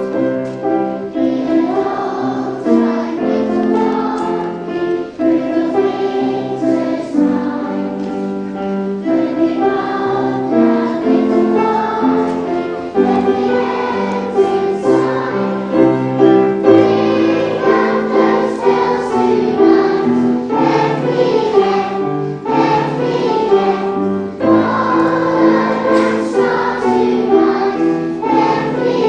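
Children's choir singing a song together, with piano accompaniment.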